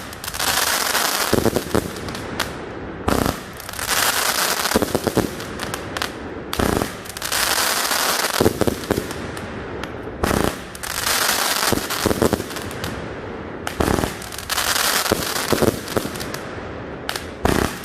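A 49-shot consumer firework cake firing, one shot about every two seconds. Each burst is followed by a long crackling hiss.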